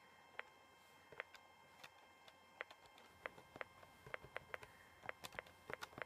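Near silence: room tone with a faint steady high tone and scattered soft clicks at irregular moments.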